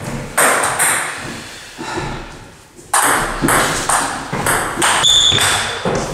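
Table tennis ball clicking off the bats and the table: a few hits in the first second, a lull, then a quick run of hits from about three seconds in.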